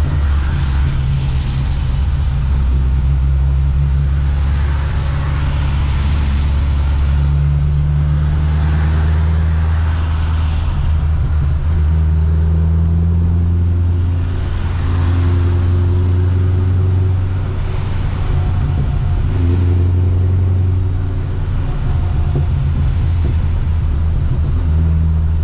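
Corvette C6's supercharged LS3 V8 running at low speed, heard inside the cabin as a steady low drone whose pitch shifts a few times with the throttle. Over it comes a hiss of rain and wet road that rises and falls.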